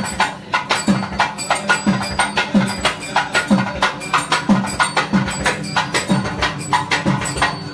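Traditional temple drumming. Low drum strokes a little under a second apart each slide down in pitch, with sharp clicking strokes in between.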